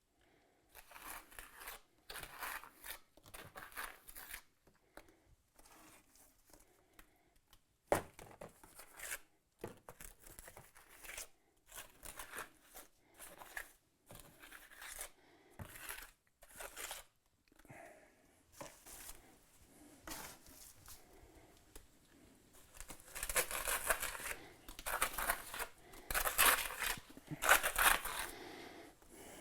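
Mason's steel trowel scraping and working mortar against brick in short, irregular strokes, growing louder and denser in the last few seconds.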